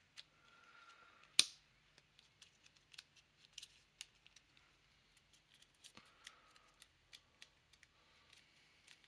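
Wooden puzzle box being handled and its parts turned: scattered light clicks and taps, with one sharper click about one and a half seconds in.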